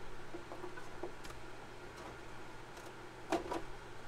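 Scattered light clicks and ticks of hands working on a painted polycarbonate RC car body and its masking tape, with one sharper click a little over three seconds in, over a faint low hum.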